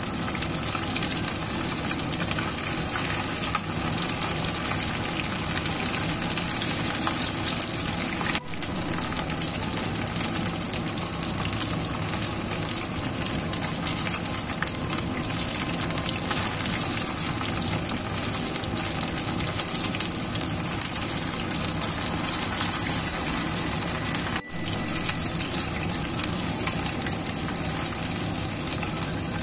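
Flour-coated marinated chicken pieces deep-frying in hot oil in a wok: a dense, steady sizzle and crackle that dips briefly twice.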